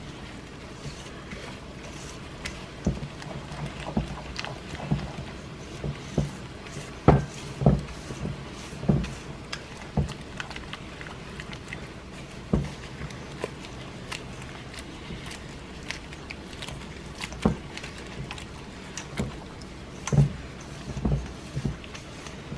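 Gloved hands kneading and squeezing wet grated cassava and flour in a stainless steel bowl, making uneven soft squelching thuds and clicks.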